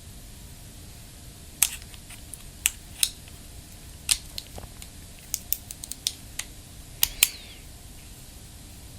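Scattered sharp clicks and taps, about a dozen over several seconds, from handling the action-camera grip and its parts.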